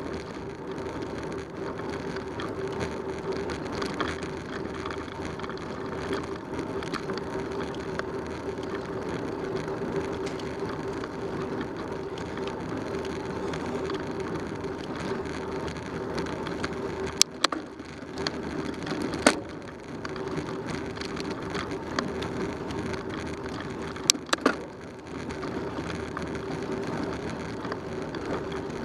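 Bicycle rolling on asphalt, heard from a camera mounted on the bike: steady tyre and riding noise with a hum. A few sharp knocks stand out in the second half, two of them close together near the end.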